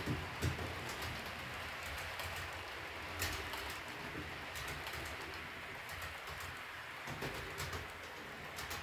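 H0-scale model train coaches rolling over the track, a low rumble with frequent light clicks of the wheels over rail joints, and a low cooing sound beside it.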